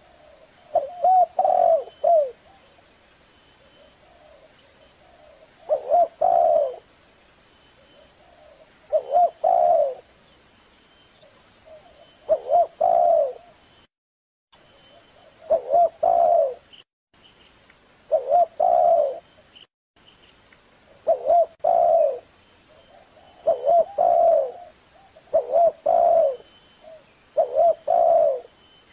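Spotted dove cooing: about ten short phrases of low coos, each about a second long, repeating every two to three seconds.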